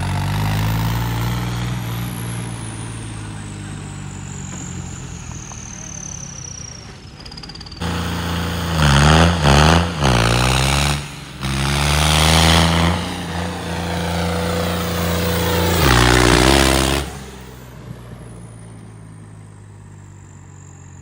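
Tractor diesel engine running, then revved hard several times with the pitch dipping and climbing, as during wheelie stunt attempts. A high whine slowly falls in pitch early on and again near the end.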